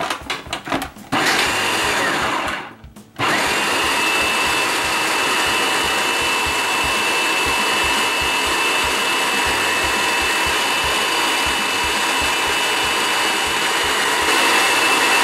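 Food processor grinding soaked almonds, cashews, sunflower seeds and garlic. It begins with a few clicks as the lid and pusher are fitted. The motor spins up for a short run of about a second and a half and stops, then starts again and runs steadily with a high whine over the churning nuts.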